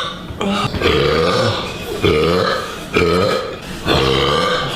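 A woman burping loudly, about four long burps in a row, each lasting about a second and starting roughly a second after the last.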